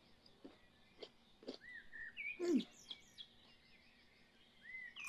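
Faint birdsong: scattered short chirps, arched whistled notes and quick downward-sliding calls, with a few soft ticks in between.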